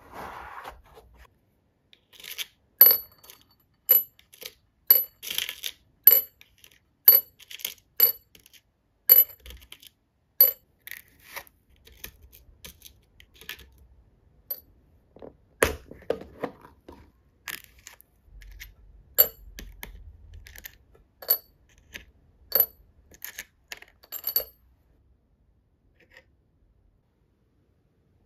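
Small steel screws and washers of a metal engine model kit clinking against each other and against metal tweezers as they are picked out of a plastic parts case: sharp, ringing metallic clinks about once a second. They thin out past the middle and stop a few seconds before the end.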